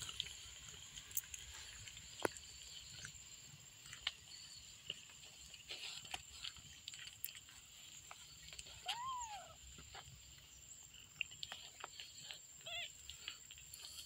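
Twelve-day-old kitten mewing twice: one short arched mew about nine seconds in and a brief squeak near the end. Around them, soft scattered clicks and rustling as the mother cat grooms the kittens on their towel bedding.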